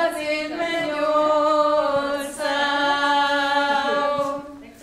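Several voices singing unaccompanied in long held notes over a steady low note, fading out near the end.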